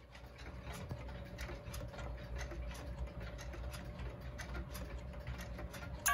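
Light clicks and ticking of a battery-operated cuckoo clock as its minute hand is turned by hand toward the hour, over a low rumble and a faint steady hum. Right at the end the clock's electronic hourly chime strikes its first note, the loudest sound here.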